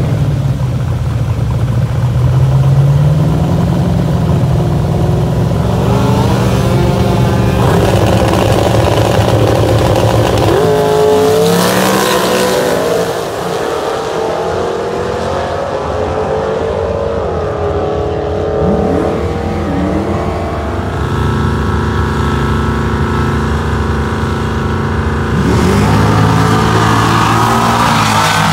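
A drag car's engine is revved on the start line, then launches and pulls away down the strip, its pitch climbing in several sweeps as it goes through the gears. Near the end a second car's engine comes in louder.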